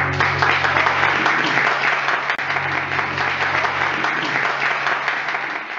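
Audience applauding at the end of an acoustic guitar song. The last guitar chord rings on low under the clapping and fades out about four seconds in.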